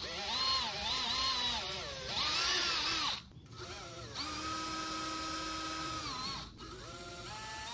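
Cordless drill whining in several short trigger runs as a 1/16-inch bit bores pilot holes through the plastic hatch; the motor pitch rises and falls, with brief stops about three and six and a half seconds in.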